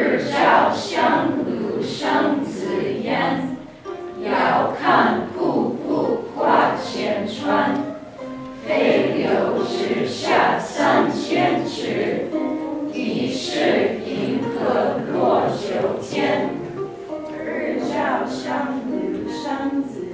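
A group of students' voices reciting a classical Chinese poem in unison, line by line, with short pauses between the lines.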